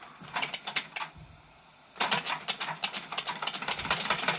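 Wilesco D20 toy steam engine being started by hand: a few clicks as the flywheel is flicked, then about two seconds in its double-acting brass cylinder catches and runs with a fast, rapid clatter of exhaust chuffs, on a boiler that has not yet built up much pressure.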